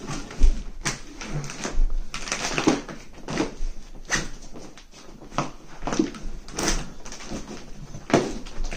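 Plastic vacuum storage bag crinkling and rustling with irregular thumps as a compressed mattress inside it is pressed down and rolled up by hand.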